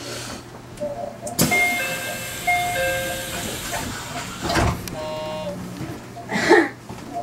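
Sounds inside a train's driver's cab: a short electronic chime of several held notes at different pitches, then a brief buzzing tone about five seconds in, with a few knocks over a steady low hum.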